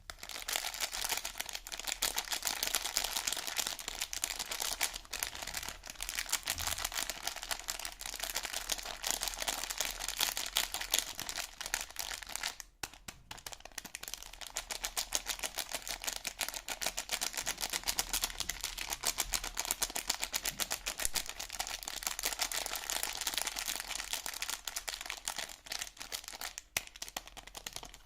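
Soap packaging being handled and unwrapped: a dense, continuous crackle of crinkling wrapper, with a brief pause about halfway through.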